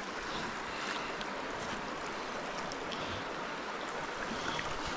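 Steady rush of a small stream's flowing water.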